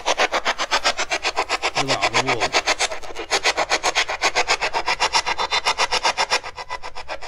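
Spirit box sweeping through radio stations: rapid, even chopping static at about ten steps a second, with a brief low wavering snatch of sound about two seconds in.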